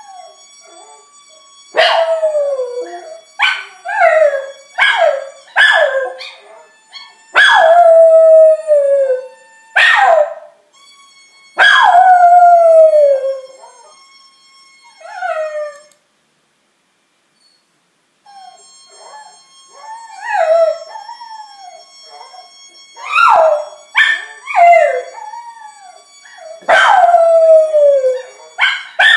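Jack Russell terrier howling in a long series of calls, each starting high and sliding down in pitch. Some are short yelps and some are drawn out for about two seconds, with a silent break of about two seconds midway.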